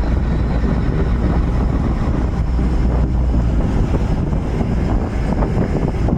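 Steady rumble of a tow speedboat's engine under wind buffeting the microphone.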